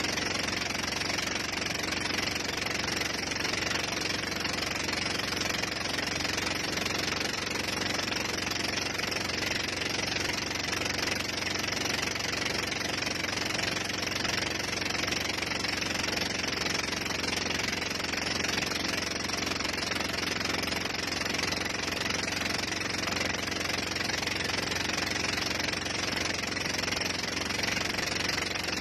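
Tow boat's engine running steadily at speed under way, mixed with the rush of water and spray.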